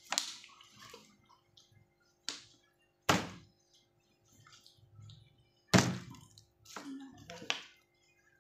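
A plastic bottle partly filled with water being flipped and landing on a cloth-covered tiled floor: about five sharp thuds a second or two apart, three of them loud, with the water sloshing inside.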